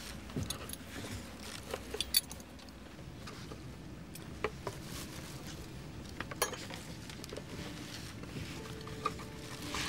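Scattered light clinks and clicks of cutlery and food containers being handled, a few separate strikes spread over several seconds, over a steady low airliner cabin hum.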